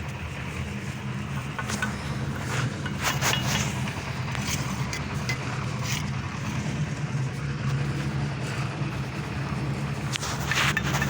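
An engine or motor running steadily, with scattered short scrapes and knocks on top.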